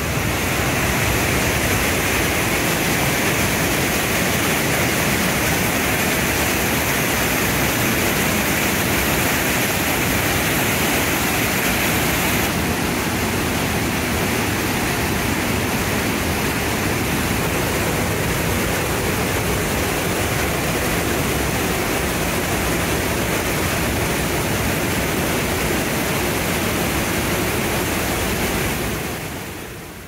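Trümmelbach Falls, glacier-fed waterfalls plunging through a narrow rock gorge: a loud, steady roar of crashing water. It fades out near the end.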